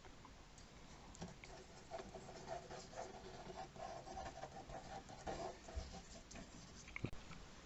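Pencil sketching on paper: short scratchy strokes, some quicker and louder than others. A faint steady tone sounds behind them for a few seconds in the middle.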